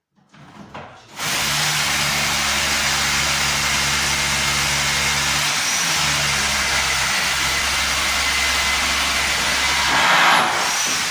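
Rotary hammer with a long drill bit drilling down through a floorboard and joist into the concrete beneath, running steadily from about a second in, with a brief swell just before it stops near the end.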